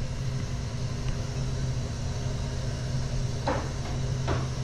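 Gas burner of a commercial copper-coil water heater firing, a steady noise with a constant low hum, its draft just corrected to a safe level.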